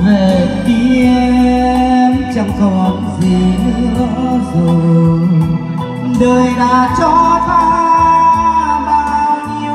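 Vietnamese slow ballad music playing loud through a stage PA speaker system, with steady bass notes and a held melody line.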